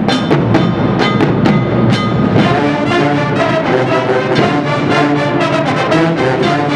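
Marching band playing on the field: the drumline hits about twice a second, then the brass section enters about two and a half seconds in with sustained chords over the drums.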